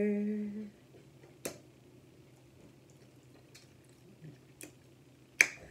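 Quiet tabletop handling sounds: a handful of short, sharp clicks and taps scattered through a low room hush, the loudest near the end, as a small glass bottle of steak sauce is tipped and handled over a plate of steak.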